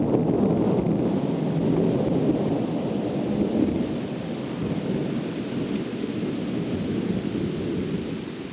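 Rolling thunder, a long low rumble that slowly dies away over the last few seconds.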